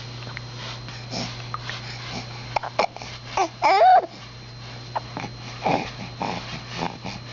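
Baby babbling in short, scattered vocal bursts, with a louder call that rises and falls about three and a half seconds in, over a steady low hum.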